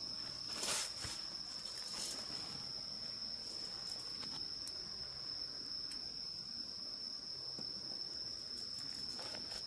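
An insect, likely a cricket, trills on one steady high note without a break. A few soft knocks or rustles come through, the clearest about a second in.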